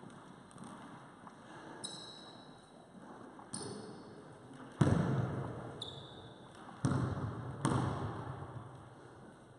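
A basketball bouncing three times on a wooden sports-hall floor, each bounce echoing in the hall, with a few short high squeaks from trainers on the floor in the first half.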